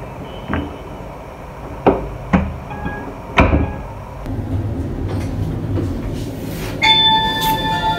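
A few sharp knocks, then a passenger lift running with a steady low rumble, and a bright electronic chime near the end.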